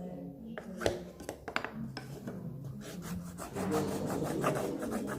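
A small wooden modelling stick rubbing and scraping on soft clay, with a few light taps.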